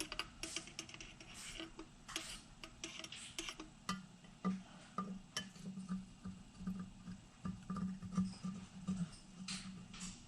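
Steel engine valves being handled and wiped down with a rag: a run of light metallic clicks and clinks, with a low hum coming and going through the middle.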